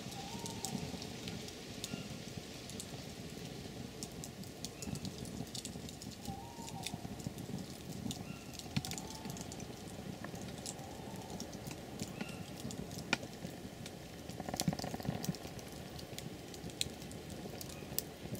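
Scattered light ticks and patter of rain dripping through the wet woodland, with a few short faint bird calls now and then.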